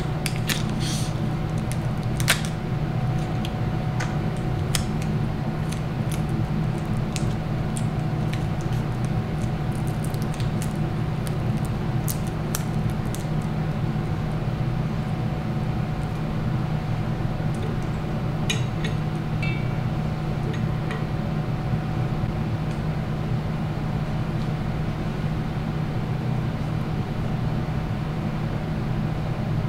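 Scattered clicks and crinkles from hands working clear tape around candy canes, thick over the first dozen seconds and returning briefly about two-thirds through, over a steady low hum.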